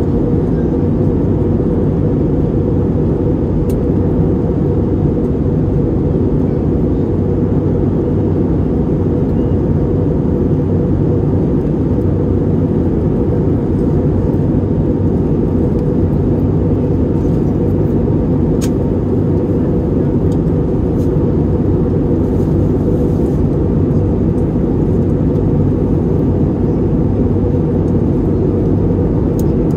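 Steady cabin noise inside an Airbus A321neo: the constant low drone of its Pratt & Whitney PW1100G geared turbofans and the rushing airflow around the fuselage. A few faint clicks sound over it.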